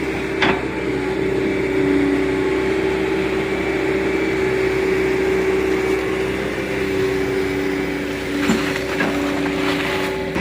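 Excavator's diesel engine running steadily, with a few short knocks from the machine about half a second in and again near the end.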